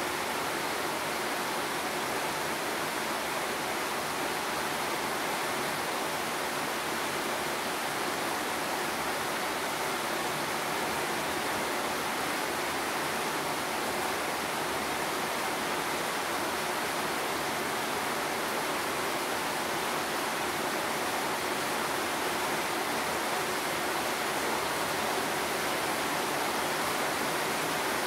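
Steady rain, heard as an even, unbroken hiss with no single drops or thunder standing out.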